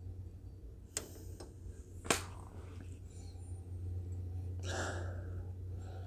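A man nosing a glass of whiskey: quiet sniffing breath, with two sharp clicks about one and two seconds in, the second the loudest, and a longer inhale near the end, over a steady low hum.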